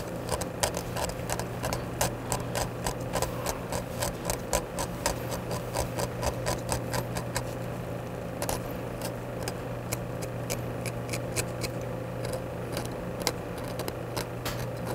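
Scalpel blade scraping and picking corrosion off a corroded metal artifact: an irregular run of small scratchy clicks, a few each second, over a steady low hum.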